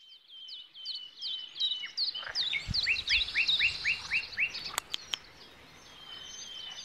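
Small songbirds singing: a fast run of high, rapid chirps, joined about two and a half seconds in by a series of about eight lower, falling notes. Two sharp clicks come about five seconds in.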